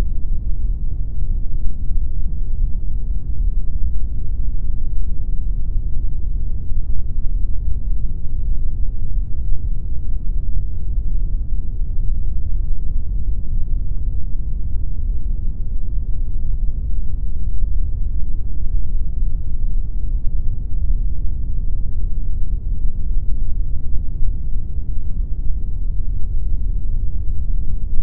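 Steady synthetic pink noise: an even, unbroken hiss that sounds as a deep rumble, with most of its weight in the bass and little treble.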